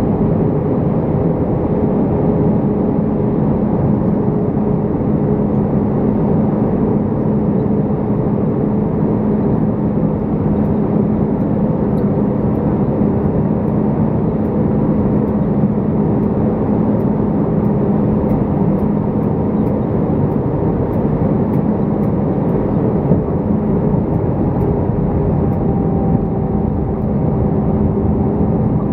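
Steady cabin noise inside an Airbus A319 airliner on approach, heard from a window seat over the wing: the rumble of the jet engines and airflow, with a steady low hum running through it.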